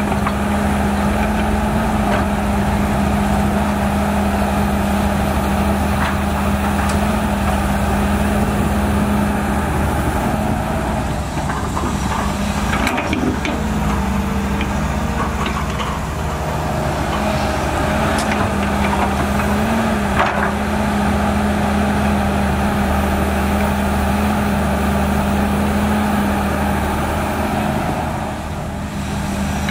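Volvo EC210BLC excavator's six-cylinder diesel engine running steadily under digging load, its pitch shifting slightly as the hydraulics work. A few sharp knocks of metal and earth come through, the clearest about two-thirds of the way in.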